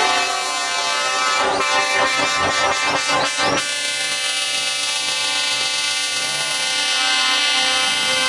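Several truck air horns sounding together in long, steady chords, broken by a run of rapid stuttering blasts between about a second and a half and three and a half seconds in.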